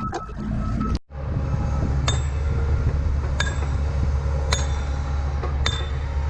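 Four sharp metal-on-metal clinks about a second apart, each ringing briefly, over a steady low engine hum.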